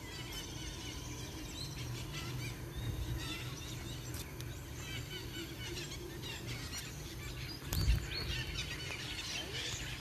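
Many small birds chirping and calling in the trees, short high chirps throughout and thicker near the end, over a steady low rumble. A single thump about eight seconds in.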